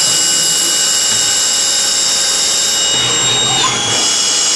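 Swiss-type CNC lathe (Manurhin K'MX Swing 1026) machining a brass part: a steady high-pitched whine from its spindles and live tools over the hiss of cutting. About three and a half seconds in, the whine drops slightly in pitch as the machine changes speed.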